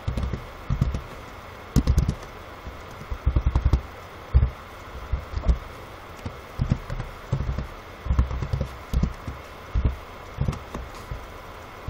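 Computer keyboard typing: irregular runs of dull keystrokes with short pauses between them.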